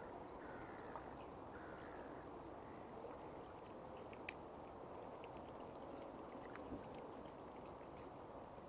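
Faint steady wash of lake water lapping, with two short faint bird calls about half a second and a second and a half in, and scattered small ticks.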